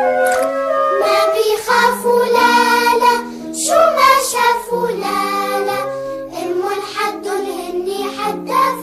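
Children's song music with a child's voice singing over an instrumental backing, the melody moving in short held notes.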